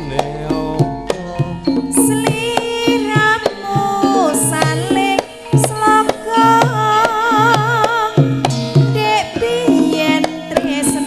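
Javanese gamelan (karawitan) music in Sragenan style: metallophones and gongs ringing in steady struck notes, kendang drum strokes underneath, and a high wavering melody line with vibrato over the top.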